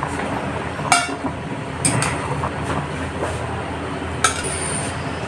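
Water at a rolling boil in a steel pot, with a wire mesh skimmer clinking against the metal three times as boiled ash-gourd pieces are scooped out.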